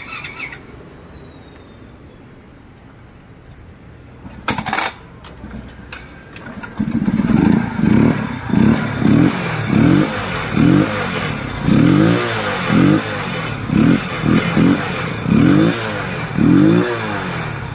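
A scooter's air-cooled single-cylinder engine catching about seven seconds in after a brief clatter, then revved in repeated throttle blips, the pitch rising and falling about once a second. It is the engine running again after its cylinder was cleaned of carbon with gasoline to cure loose compression.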